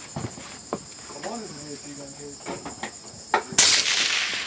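Steady high-pitched chirring of insects, with faint voices in the middle. About three and a half seconds in comes a loud rifle shot, its noise trailing off over about a second.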